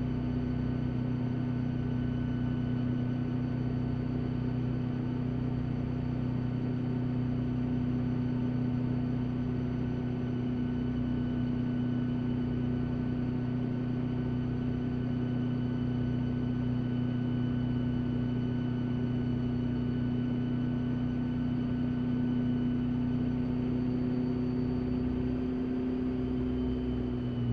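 Rotorway kit helicopter's engine and rotor running steadily, heard from inside the cockpit: an even drone with a strong low hum that holds its pitch.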